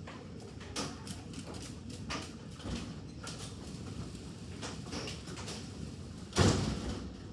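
Scattered hailstones striking a hard surface: irregular sharp knocks, with one loud heavy impact about six and a half seconds in.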